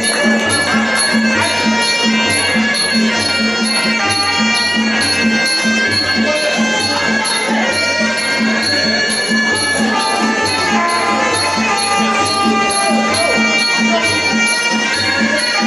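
Traditional Muay Thai sarama fight music: a pi chawa reed oboe playing a melody over a steady drum beat, with small ching cymbals ticking about twice a second.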